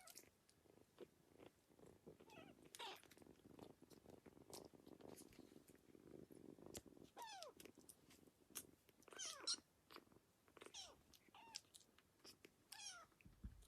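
Kitten purring softly, then giving several faint short mews that fall in pitch, starting about halfway through.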